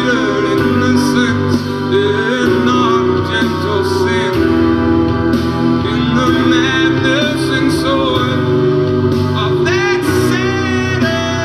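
A recorded song: a singer's voice over instrumental backing, with a long wavering sung note near the end.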